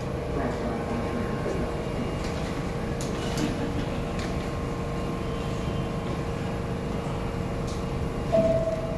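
R62A subway train standing at the platform with its doors open: a steady hum from the train's equipment with a few faint clicks. Near the end the first, higher tone of the two-tone door chime sounds, the signal that the doors are about to close.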